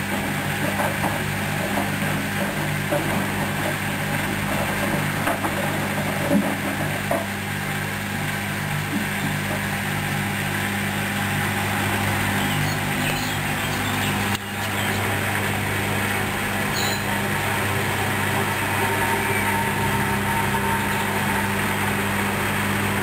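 Hoover Dynamic Wash 10+ washing machine running on its mini-load programme: a steady motor hum with the drum's noise over it, holding an even level throughout.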